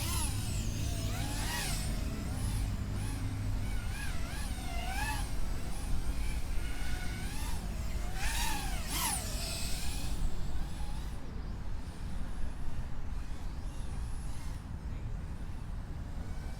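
Brushless motors of a GEPRC Smart 35 FPV quadcopter whining, their pitch swooping up and down again and again as the throttle changes through freestyle moves, loudest about eight or nine seconds in, over a steady low rumble.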